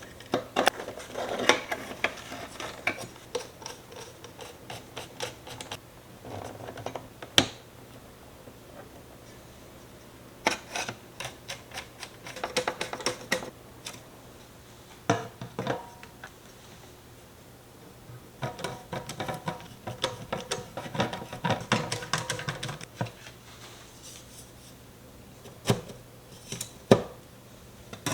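Small metal and plastic computer parts being handled and fitted by hand during a PC build: irregular bursts of clicking, scraping and rattling, with single sharp clicks about seven seconds in and twice near the end.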